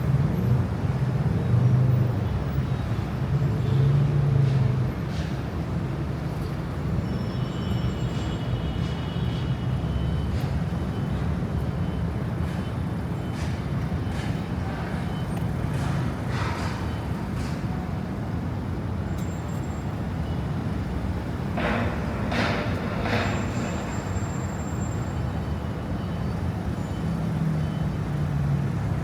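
City street traffic: a steady rumble of passing cars and buses, with a heavier engine going by in the first few seconds and again near the end.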